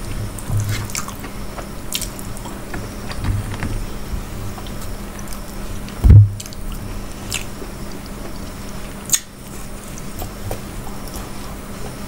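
Eating sounds: chewing and wet, squishy mouth noises, with fingers tearing mughlai paratha and working food on a steel plate, giving scattered small clicks. A loud low thump about halfway through.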